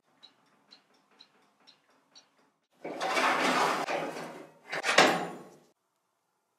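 Small countertop oven: light metallic ticks about twice a second, like a mechanical timer, then a long scraping rush and a sharp metal clank about five seconds in, the door and wire rack being handled.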